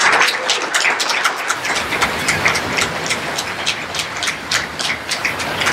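Audience applauding: dense, irregular clapping, loudest at the very start and then settling into a steady level.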